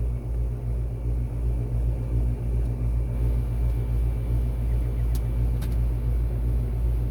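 Rheem central air conditioner's outdoor condensing unit running: a steady low hum from the scroll compressor and condenser fan, pulsing slightly, with two faint ticks a little after five seconds in.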